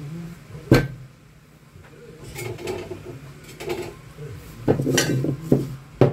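Heavy metal tools being set down on a workbench: a bench vise, a steel round bar and a block, knocking and clinking against the bench. One sharp knock comes just under a second in, then a scatter of knocks and clinks that gets busier near the end.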